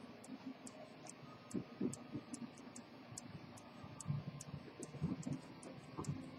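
Antique fusee pocket watch movement ticking: light, even high ticks a few times a second, with some low handling bumps.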